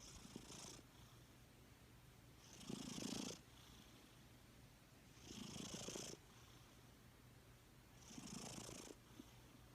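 Sleeping cat purring and snoring softly, the sound swelling with each slow breath, four breaths about every three seconds.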